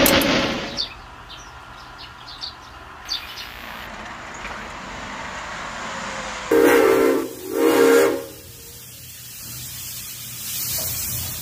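Steam locomotive whistle sounding two short blasts, a little under a second each, about six and a half seconds in. In the first second the rushing noise of a passing steam train dies away.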